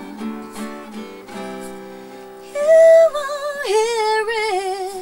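Acoustic guitar picking, then about halfway through a woman's voice comes in loud over it, singing a long sustained line with vibrato that steps down in pitch.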